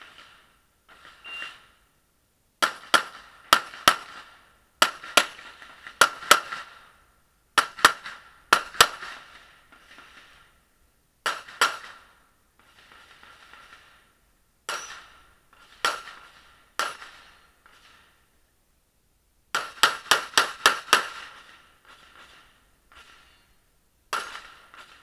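Pistol fired in quick pairs and strings of shots: a few bursts of four or five, then single shots, then a fast run of about six, with pauses between strings.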